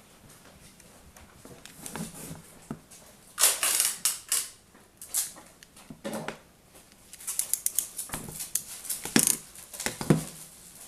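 Small connector parts and hand tools being handled: irregular sharp clicks and rattles in several clusters, the loudest about three and a half seconds in and again over the last few seconds.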